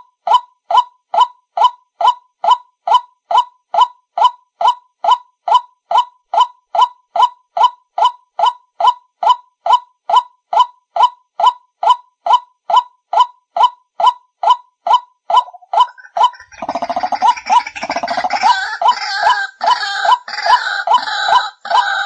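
White-breasted waterhen (kareo padi) calls played through a small speaker as a lure: a short hooked croaking note repeated evenly, about two and a half a second. About sixteen seconds in, a rougher jumble of calls joins in over the looped call.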